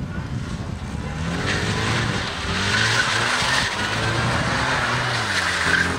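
Classic Mini pickup's engine revving up and down several times as the car is thrown around cones on concrete, with its tyres squealing, loudest about halfway through and again near the end.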